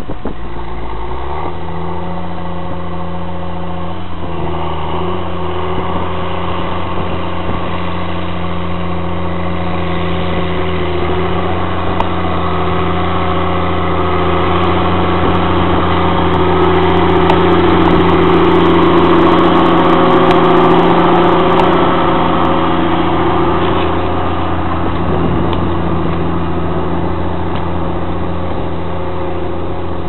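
Diesel engine of a Caterpillar Challenger MT755B rubber-tracked tractor running steadily under load while pulling a plough through the soil. The note rises in the first couple of seconds, and the engine grows louder as the tractor passes close, then eases as it moves away.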